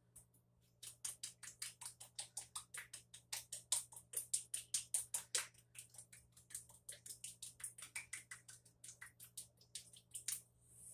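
A small spice container worked by hand over the marinade pot: a steady run of quick, sharp clicks, about five a second, starting about a second in and stopping near the end.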